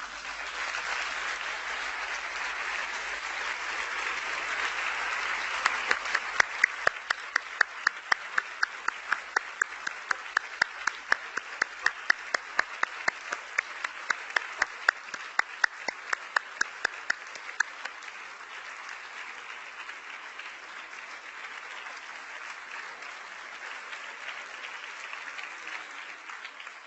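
Audience applauding at the end of a talk. About six seconds in the clapping falls into a sharp, rhythmic beat of roughly two to three claps a second, which breaks up again after about twelve seconds into ordinary applause.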